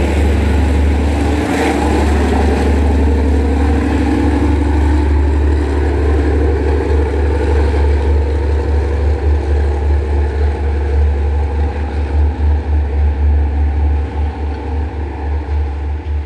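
Diesel engine of a Sri Lanka Railways Class S10 multiple unit's rear power car pulling away under power, with its engine note shifting and fading as the departing train recedes. A heavy low rumble runs underneath and turns uneven and gusty over the last several seconds.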